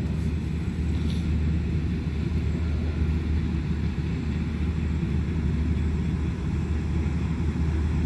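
Combine harvester working a field some way off: a steady low engine and threshing drone.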